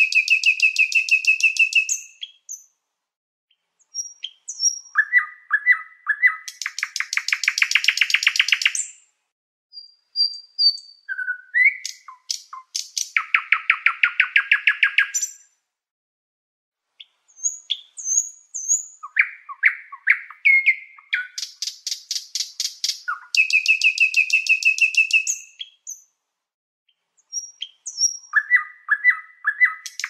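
Domestic canary singing in phrases of fast trills a few seconds long, separated by short pauses.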